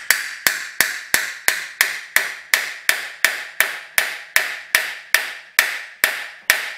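Hammer tapping a heated timing gear onto the crankshaft of a 1956 Ariel Square Four engine, driving it onto a straight-shaft interference fit. Light, even taps with a short metallic ring, about three a second, stopping just before the end.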